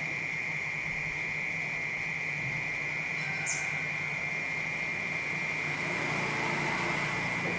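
Cicadas droning in one steady, high, even buzz over a low hum of city background. A short, high, falling chirp comes about three and a half seconds in.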